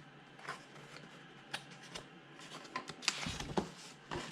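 Paper rustling as the pages of a small printed instruction manual are handled and turned, in a few short rustles and taps that cluster near the end.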